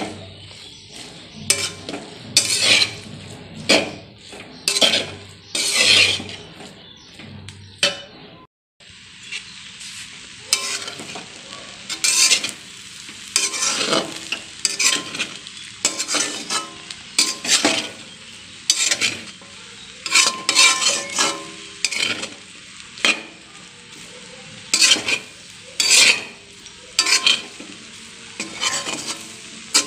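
A spatula scraping and stirring rice and noodles in a metal wok, in repeated uneven strokes over the sizzle of frying. The sound cuts out briefly about eight seconds in.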